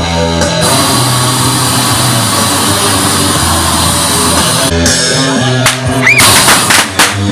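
Loud rock music with guitar and sustained bass notes, with a brief rising-and-falling squeal about six seconds in.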